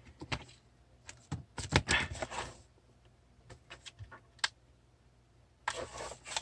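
Irregular light clicks and taps of small hard parts being handled, in short clusters with quiet gaps between them.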